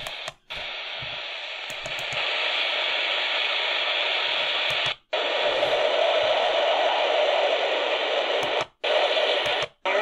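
Midland ER50 weather radio's speaker playing AM-band static and hiss between stations, getting louder about two seconds in and again near the middle. It cuts out briefly four times as the radio is tuned.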